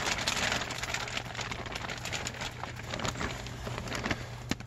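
Rain pattering on clear plastic sheeting close to the microphone: a dense hiss of many small drop ticks.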